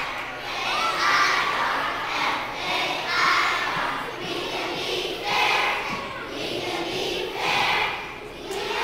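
A group of young children shouting in unison, a string of loud calls about a second apart.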